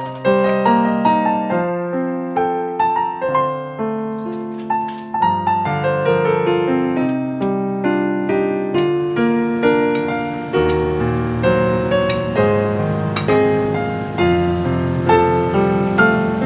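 Background piano music: a flowing melody of struck notes over a held bass line that drops lower and fuller about ten seconds in.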